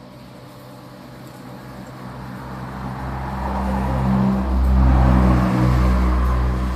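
An engine running with a low, steady hum that grows much louder over the first few seconds, peaks about two-thirds of the way through, then eases slightly, like a motor vehicle drawing close.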